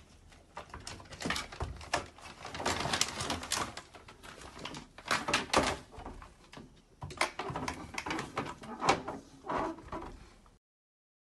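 Plastic cat flap rattling and clacking in irregular bursts of knocks and clicks as a cat pushes at it.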